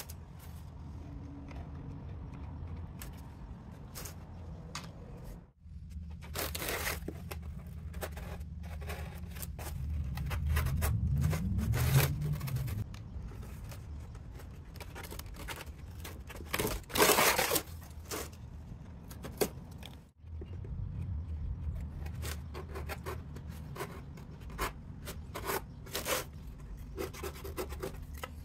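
Corrugated cardboard being handled, pressed and cut with a utility knife: a run of scraping and rustling with many small clicks, and two louder tearing rasps, about a quarter of the way in and again past the middle. A low hum runs underneath and swells briefly near the middle.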